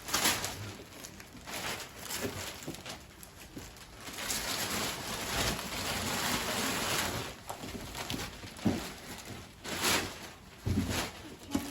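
Packaging rustling and crinkling as a present's box is unpacked by hand, with scattered sharp crackles and a denser stretch of rustling near the middle.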